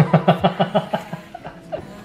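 Laughter: a quick run of 'ha-ha-ha' pulses through the first second that then trails off, over background music.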